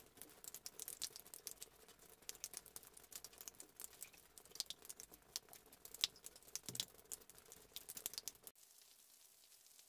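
Raindrops tapping irregularly on window glass, many close, sharp ticks. About eight and a half seconds in the sound cuts abruptly to a soft, steady rain hiss.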